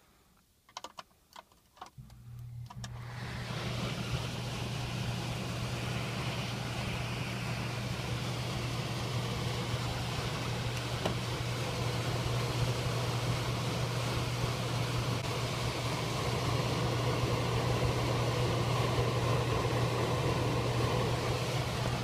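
A few light clicks, then about two seconds in an air handler's blower motor starts with a low hum and comes up to speed over a second or two, then runs steadily with an even rush of moving air.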